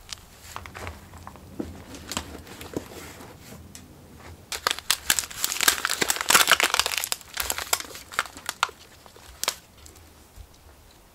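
Light scuffs and taps of hands working soil, then a few seconds of crinkling and crackling about halfway through as a thin plastic nursery pot is squeezed to free a lettuce seedling and its root ball.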